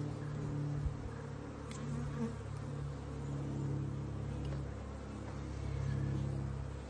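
Honeybee colony buzzing steadily over the open frames of its hive, a constant hum, with a light knock about a second in.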